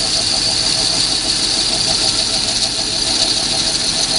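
A Mars metal lathe turning at about 400 RPM while a high-speed-steel parting tool cuts deep into an aluminium bar. It makes a steady machining hiss and drone, with a light pulse repeating about six or seven times a second.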